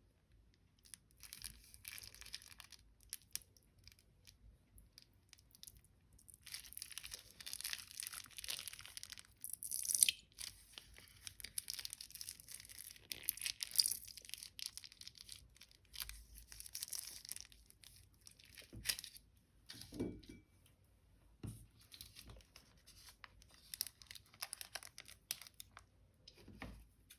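Slime and plastic piping bags handled by hand: irregular crinkling and crackling, with sharper snaps about ten and fourteen seconds in and a few soft thuds later on.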